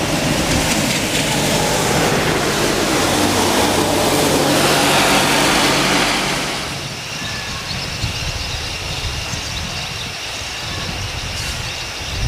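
A motor vehicle's engine hum and noise, steady at first, then dying down about two-thirds of the way through.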